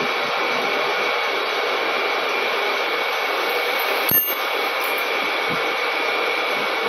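Large lathe running with a heavy forged metal disc spinning in the chuck: a steady whir with a faint high whine. A single sharp knock about four seconds in.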